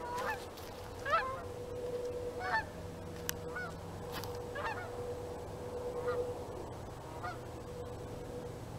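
A flock of geese flying overhead, honking repeatedly at intervals of about a second, the calls growing fainter near the end.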